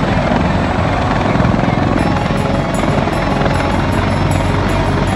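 Large military transport helicopter hovering low over the ground in its own dust cloud, its rotors beating with a steady, rapid, dense chop.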